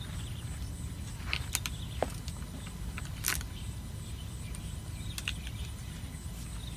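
Fishing rods and spinning reels being handled on a rack, giving a handful of sharp clicks and knocks, the loudest a little past three seconds in, over a steady low rumble.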